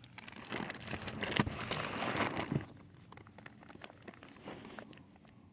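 Rustling and scraping with scattered small clicks as a hand works a climate-control cable out from behind a car dashboard. It is busiest for the first couple of seconds, then dies down to faint ticks.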